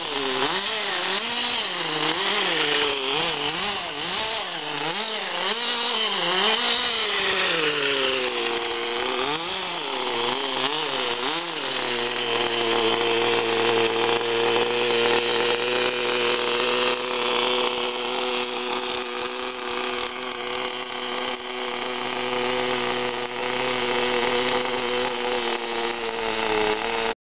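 Veco .21 two-stroke glow-plug model engine of a 1978 Yankee RC buggy, revving up and down over and over in quick swings. About twelve seconds in it settles into a steady idle.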